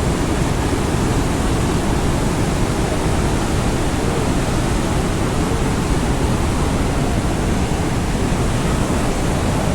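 Rhine Falls waterfall: a loud, steady, unbroken rush of falling water.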